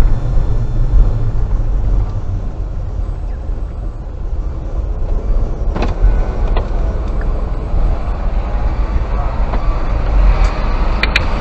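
Car engine and road noise heard inside the cabin as the car rolls slowly forward, a steady low rumble. A sharp click comes about six seconds in, and a quick pair of clicks near the end.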